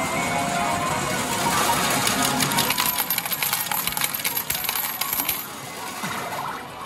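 Metal arcade medals of a medal pusher game clattering and clinking, a dense run of clinks that thins out about five and a half seconds in: the machine paying out a won catch of medals.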